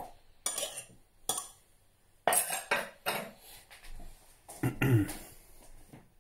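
Glass measuring jug and a utensil being handled on a worktop: several separate clinks and knocks at irregular intervals.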